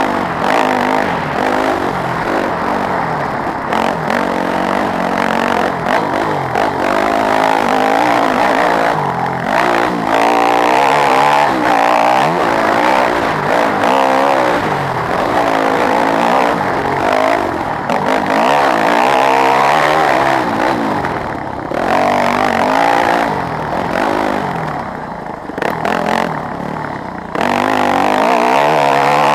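Yamaha WR250F's four-stroke single-cylinder dirt bike engine, heard up close while riding, revving up and down over and over as the rider works the throttle and shifts, its pitch repeatedly rising and falling.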